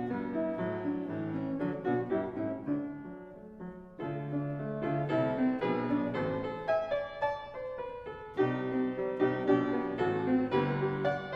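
Piano music: notes and chords played in flowing phrases. The playing thins out and softens about three seconds in, then a new phrase begins at about four seconds and another near eight and a half seconds.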